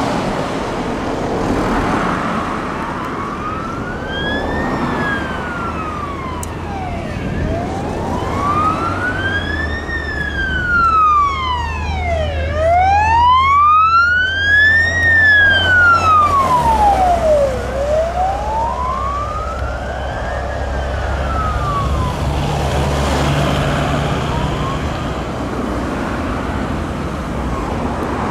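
Fire engine siren on a slow wail, rising and falling about every five seconds, as a Scania fire service water carrier drives past; it is loudest about halfway through. The truck's diesel engine hum drops in pitch as it passes.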